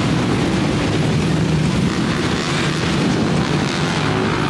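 A pack of motorcycles riding past on a city street, engines running loud and steady.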